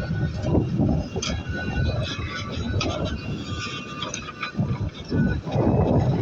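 JCB 3DX backhoe loader working: its diesel engine running under load, with irregular metallic clanks and short squeaks from the arm and bucket.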